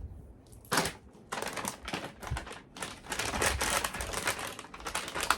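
Rustling and rubbing of a bag being handled, a run of quick scratchy strokes starting about a second in.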